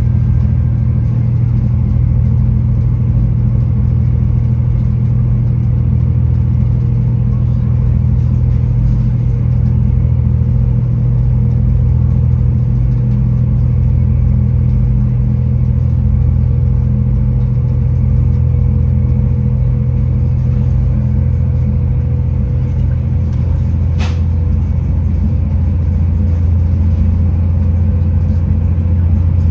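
Inside a V/Line VLocity diesel railcar running at speed: a steady low engine drone over wheel-on-rail rumble, with a faint steady whine above it. A single sharp click sounds late on.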